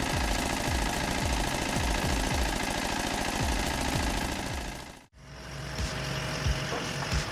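Homemade tractor-driven disc wood chipper running and chopping wood: a dense mechanical clatter with rapid repeated knocks. About five seconds in it cuts off abruptly, and a steadier machine hum follows.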